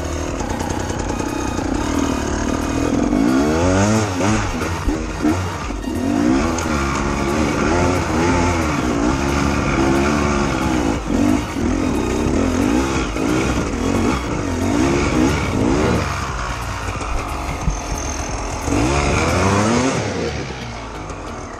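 Enduro motorcycle engine revving hard on a steep dirt climb, its pitch rising and falling again and again as the throttle is worked. Near the end the engine note drops to a lower, quieter running.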